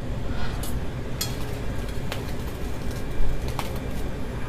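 Kitchen blowtorch burning steadily as its flame sears prawns on a metal plate, with a few light clicks.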